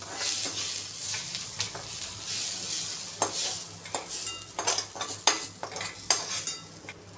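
Golden-fried sliced onions sizzling in oil in a kadhai while a spatula scoops them out of the pan. From about three seconds in, the spatula scrapes and knocks against the pan several times in quick succession.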